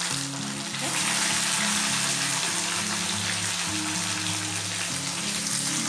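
Tomatoes, green chillies, ginger and garlic sizzling in hot mustard oil in a steel wok, just tipped in; the sizzle grows about a second in. Instrumental background music plays underneath.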